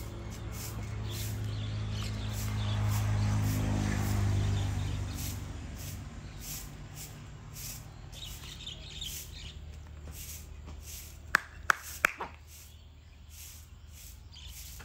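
Outdoor ambience: a low, steady motor hum that swells and fades over the first few seconds, birds chirping, and three sharp clicks or knocks close together about eleven to twelve seconds in.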